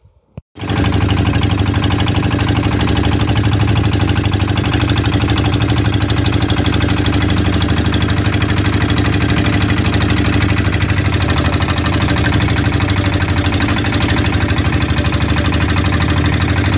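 A fishing boat's engine running steadily, loud and close to the microphone. It comes in abruptly about half a second in.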